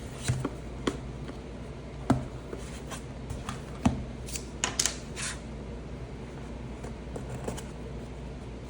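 Speaker packaging being handled and opened: a series of short clicks and rustles, most of them in the first half, then only faint handling noise.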